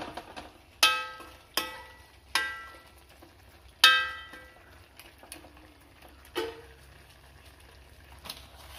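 Steel spoon stirring chicken pieces and clanking against the rim of an aluminium cooking pot: four sharp clangs in the first four seconds, each ringing briefly, then a couple of softer knocks.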